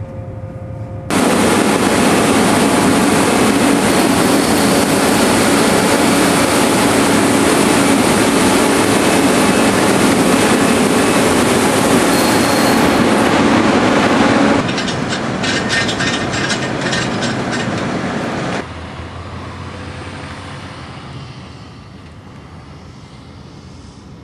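Gleaner S77 combine harvester running close by, a loud, steady mechanical din that starts suddenly. It drops to a rattling, clattering noise about two-thirds of the way through, cuts off sharply a few seconds later, and leaves a quieter rumble that fades.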